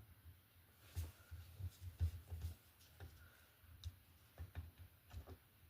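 Faint, irregular clicks and light knocks of small metal parts and tools being handled while a Stromberg carburetor is taken apart.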